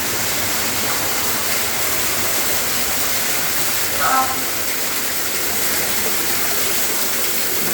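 Waterfall inside a mine, water falling and splashing in a steady, loud rush.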